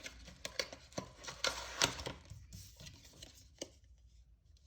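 Accessories and packaging being handled out of a box: irregular light clicks and taps with soft rustling, dying away near the end.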